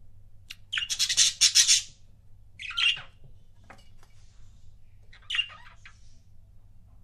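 Budgerigars giving harsh, scratchy squawks and chirps in three bursts: a loud run of chatter about a second in, a shorter call near three seconds and a brief one a little after five seconds.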